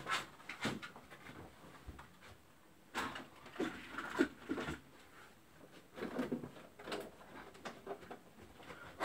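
Scattered light knocks and clunks of plastic remote-control toy cars being put down on a shelf and picked up, with shuffling as a person moves about.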